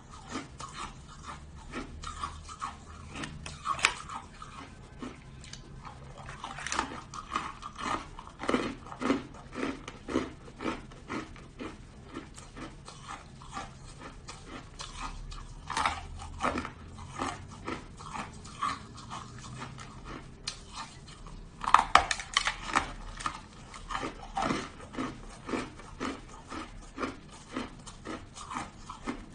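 Hard shaved ice being crunched and chewed in the mouth. Short crunches come about twice a second, with a few louder bites.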